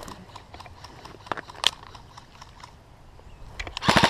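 A few light clicks while a magazine is being changed, one sharper click about a second and a half in. Near the end a G&G CM16 Raider airsoft electric rifle opens up on full-auto: a rapid, even burst of shots.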